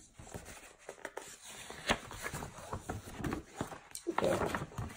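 A folded paper poster being unfolded and smoothed flat by hand: stiff paper rustling and crinkling, with irregular sharp crackles as the folds open.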